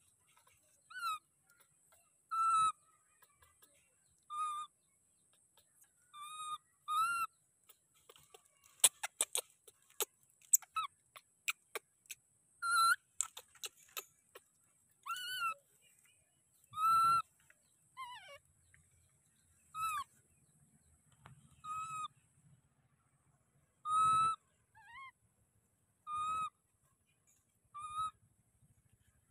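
Baby macaque giving short, high, whistle-like coo calls, about a dozen of them, roughly one every two seconds, each arching up and back down in pitch: an infant's distress cry. A run of sharp clicks and rustles comes in the middle.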